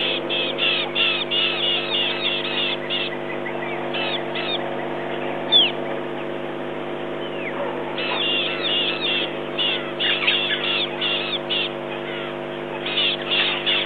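Rapid, repeated high chirping calls from wildlife at a waterhole, several a second in bouts, easing off for a few seconds mid-way before starting up again. One louder single falling whistle comes about five and a half seconds in. A steady low hum runs underneath.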